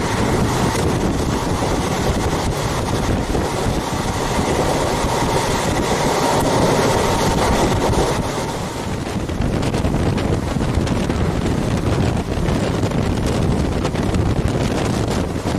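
Passenger train running at speed, its carriage and wheel noise mixed with steady wind rushing over the microphone from an open door.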